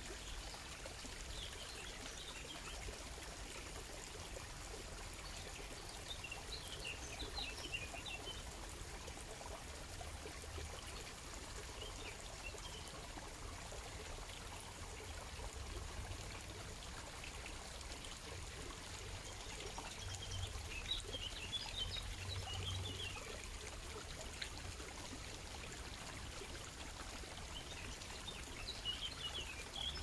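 Shallow water trickling steadily over small stones, with short bursts of bird chirping several times.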